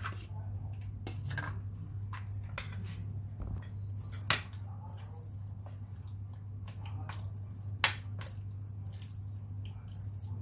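Yogurt being spooned into a bowl: soft, wet squelches and scattered clicks and taps of a spoon, with the sharpest taps about four seconds in and near eight seconds, over a steady low hum.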